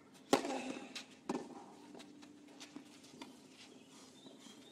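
A tennis ball bounced twice on a clay court before a serve, two sharp knocks about a second apart, the first the louder, followed by a few faint ticks over a hushed crowd.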